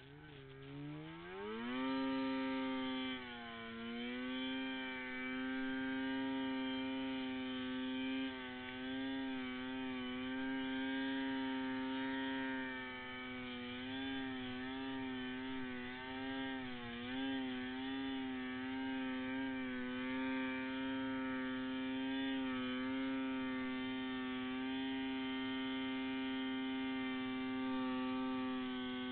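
Arctic Cat M8 snowmobile's 800cc two-stroke engine revving up over the first two seconds, then holding a steady high pitch with small dips as the sled runs through deep powder.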